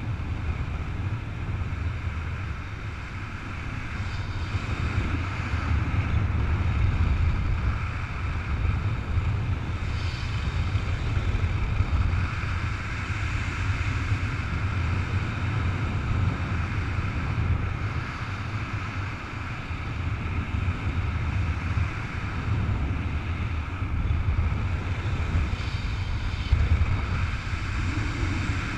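Steady rushing of airflow buffeting the camera's microphone in paraglider flight, heaviest in a low rumble.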